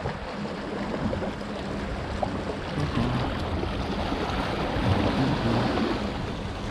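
Choppy sea water sloshing and splashing against rocks, with wind buffeting the microphone.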